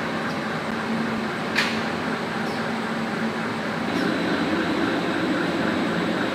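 Heavy earthmoving machinery running on a cable-laying site: a steady engine drone with a single sharp click about a second and a half in. The drone changes and grows slightly louder about four seconds in.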